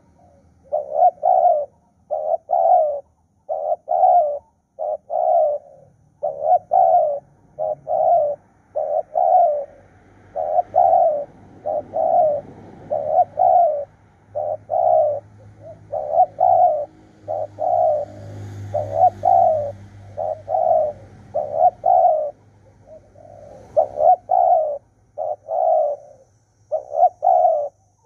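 Spotted dove cooing over and over, in short phrases of two or three notes that follow one another almost without a break.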